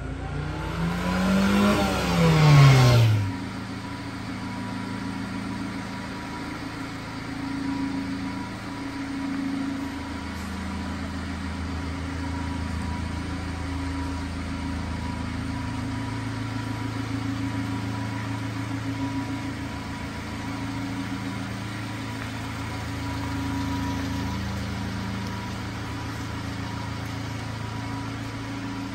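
Subaru Sambar kei truck's small engine pulling past, its pitch rising then falling away within the first three seconds, then a steady low drone for the rest.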